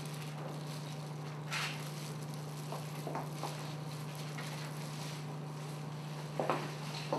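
Gloved fingers working hair-dye paste through the hair, giving a few faint, brief soft squishing and rubbing sounds, the clearest about a second and a half in, over a steady low electrical hum.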